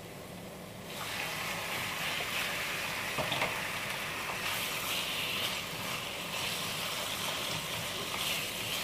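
Raw mutton pieces sizzling in hot oil in a nonstick wok, the sizzle growing louder about a second in as the meat goes into the pan, with a few light clicks of a spatula against the pan as the meat is stirred.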